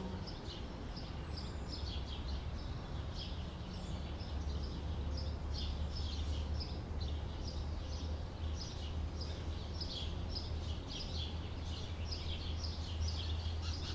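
Small birds chirping over and over in quick, short notes, over a steady low rumble.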